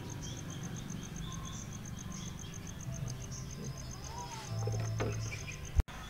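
Insects chirping in a rapid, steady high pulse, about ten a second. A low hum swells briefly about three-quarters of the way through, and a single sharp click, the loudest sound, comes near the end.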